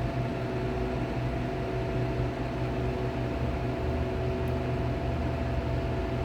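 Condensing unit with an R290 Copeland hermetic compressor running with a steady hum. The compressor is pulling high amps, about 10 A, after a restart from an off cycle, the overload condition that makes its overload relay shut it down.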